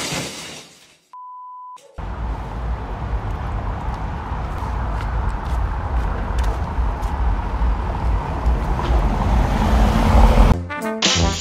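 A short steady beep tone about a second in, then outdoor street noise with a heavy low rumble. Music starts near the end.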